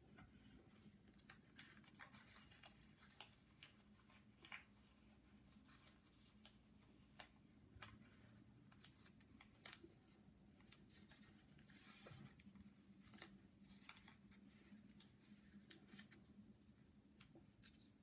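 A small piece of origami paper being folded and creased by hand: faint, scattered crinkles and soft clicks of paper, with one longer hissy rustle about twelve seconds in, over a faint steady hum.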